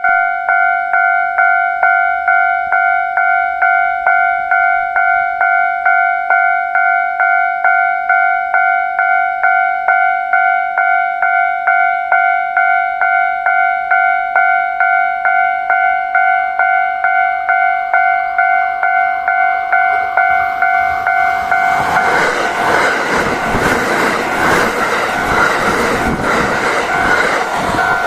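Japanese level-crossing warning bell ringing, an electronic two-tone ding about twice a second. About two-thirds of the way through, a Kintetsu 5820 series electric train passes over the crossing, and its loud running noise rises and covers the bell.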